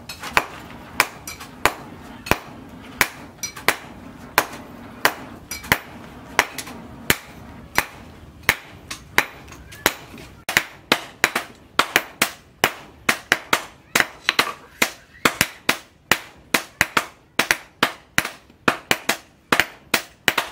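Hand hammer striking a red-hot steel machete blade on an anvil block, forging it out: a steady run of sharp metallic strikes, about two a second, quickening to about three a second from about halfway.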